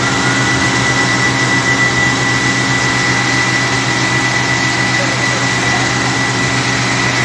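Steady loud drone of an airport fire truck's engine and water pump at work, with a constant high-pitched whine over it.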